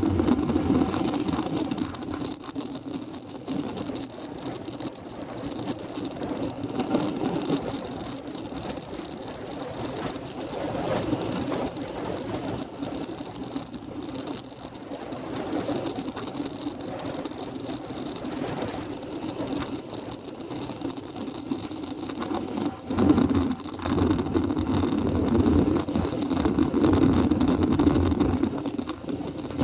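Steady riding noise from a vehicle descending a mountain road: a continuous low drone with rushing wind and road noise. It grows louder and more uneven from about 23 seconds in.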